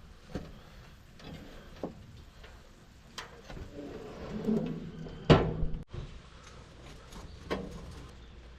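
Scattered light knocks and bumps, with one louder thud about five seconds in that stops abruptly.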